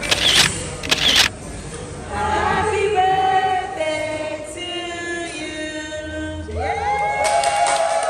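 A group of voices singing a birthday song together in long held notes, with handclaps in the first second and clapping joining in again near the end.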